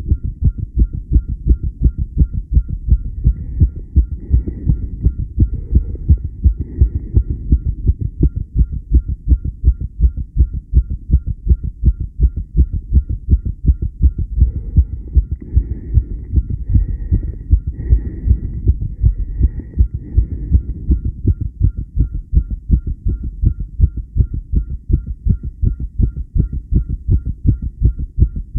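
Heart beating fast and steady, the regular rapid beat of tachycardia, each beat a low pulse.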